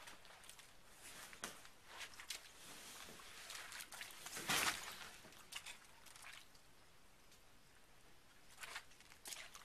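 Faint squelching footsteps in wet mud and the handling of a boat pontoon as it is shifted onto a tire, with scattered small clicks and one brief louder noise about four and a half seconds in.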